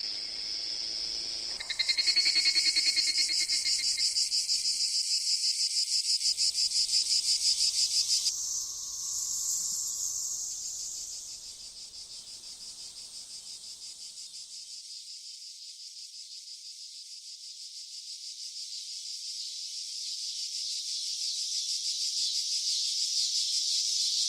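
Cicadas buzzing, a high, rapidly pulsing drone. A louder pulsing chorus comes in about two seconds in and changes character around eight seconds. It dies down by about eleven seconds, then slowly swells again toward the end.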